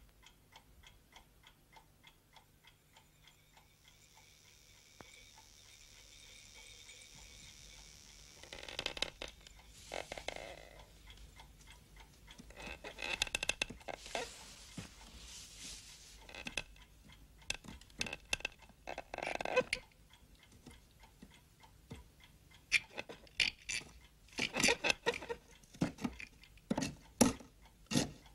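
A clock ticking softly and steadily. From about a third of the way in, irregular scrapes, knocks and clatters come in, growing louder and more frequent toward the end.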